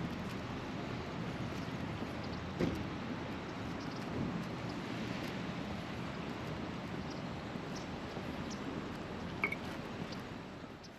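Steady rushing background noise with a faint knock and a brief high chirp, fading out near the end.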